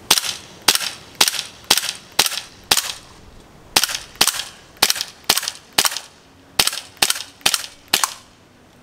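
CO2 gas-blowback airsoft Desert Eagle pistol firing about fifteen shots at roughly two a second, in three quick strings with short pauses between them. Each shot is a sharp crack, and the shooter judges from the sound that the gun is not very powerful.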